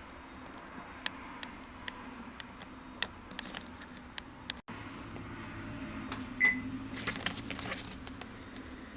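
Toshiba AW-404 fully automatic washing machine running with a steady low hum and scattered irregular clicks, the abnormal noise it makes after being carried on its side, which the owner thinks is probably harmless. A single short beep sounds about six and a half seconds in.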